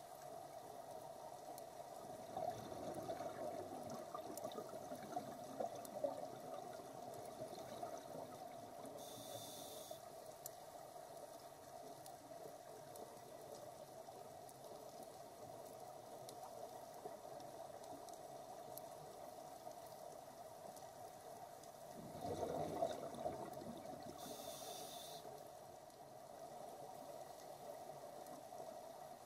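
Scuba diver's regulator breathing heard underwater: exhaled bubbles gurgle out a couple of seconds in and again about twenty-two seconds in, over a steady underwater hum, with two brief high hisses.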